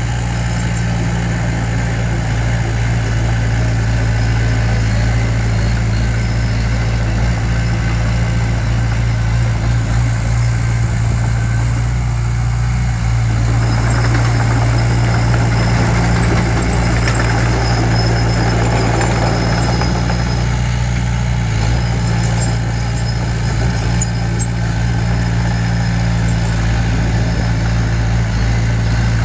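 A heavy machine's diesel engine running steadily at a constant pitch, with a noisier, rougher stretch near the middle.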